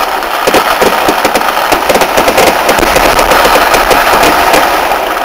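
Kerala vedikkettu fireworks: a continuous barrage of black-powder firecracker blasts, many a second, going off in a dense rattle like machine-gun fire.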